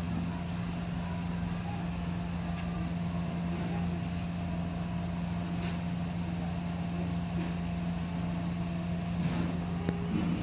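Steady low machine hum, with a few faint clicks.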